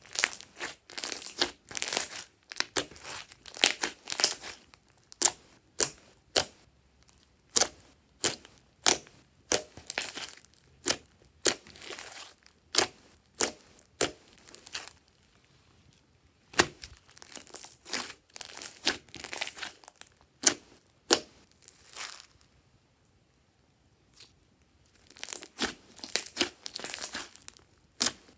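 Thick, fluffy slime being squeezed, poked and folded by hand, giving rapid sticky pops and crackles as trapped air bursts. The pops come in clusters, with a short pause about halfway and a longer one later on.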